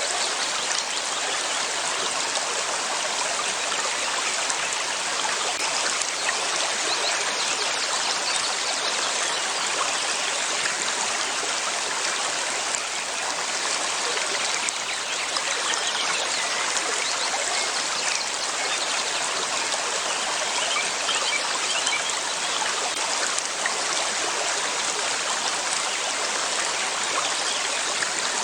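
River water flowing and splashing over rocks: a steady, even rush.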